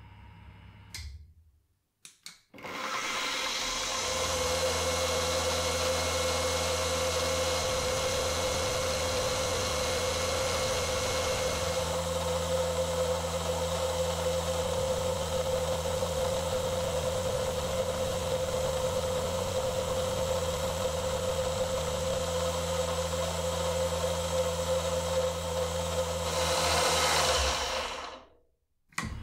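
Milling machine spindle running as a small end mill cuts a 1 mm slot into a brass cap: a steady tone over a low hum. It starts about two and a half seconds in and cuts off near the end.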